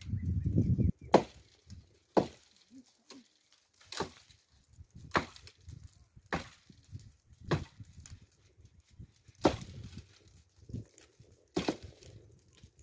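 Firewood being chopped: about eight sharp, separate blows at uneven intervals of one to two seconds. A low rumble fills the first second, before the first blow.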